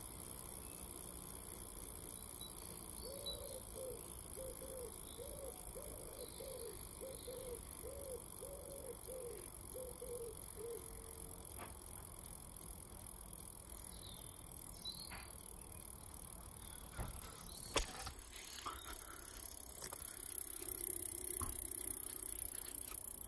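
Mountain bike rear wheel spinning freely in the air, its hub and drivetrain making a steady whirr. For several seconds a soft squeak repeats about twice a second. A couple of sharp knocks come later.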